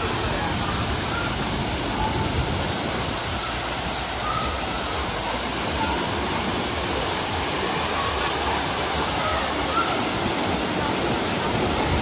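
Steady, loud rushing of falling water, as from a waterfall.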